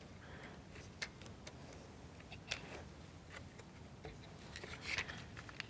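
Faint, scattered light clicks and taps of a wooden plywood model kit being handled, with soft rustling between them as a thin rubber band drive belt is fitted.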